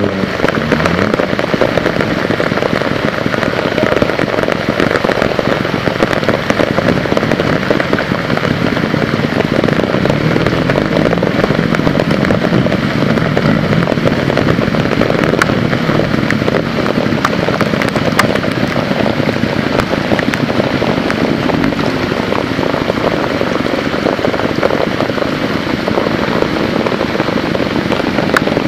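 Heavy rain falling steadily, a dense crackling patter.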